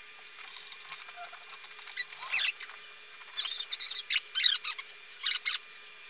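Pepper humanoid robot's motors whirring in short, high-pitched bursts, about half a dozen from about two seconds in, as it turns on its base and moves its head and arms.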